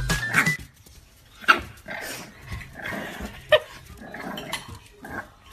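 French bulldog giving a few short, sharp barks with quieter grumbling in between.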